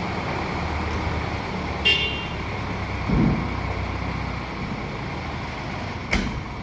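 Engine running steadily, with a short sharp ringing clank about two seconds in, a low thud about a second later, and another sharp knock near the end.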